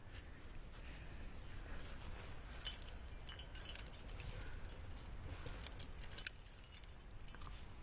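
Metal trad-climbing gear, cams and carabiners on a harness gear loop, clinking and jangling against each other as it is handled, in several short clusters starting about three seconds in.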